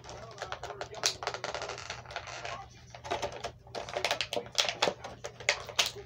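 Plastic action-figure packaging being handled during unboxing: a dense, irregular run of crinkling and sharp clicks.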